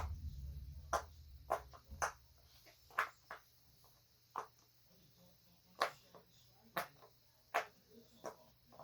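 Silicone bubbles of a unicorn pop-it fidget toy being pressed one at a time, about a dozen soft pops at an uneven pace.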